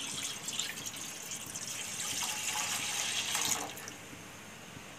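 Half a litre of milk poured in a stream into a stainless steel kadai, splashing on the pan and the milk already in it; the pouring thins and stops about three and a half seconds in.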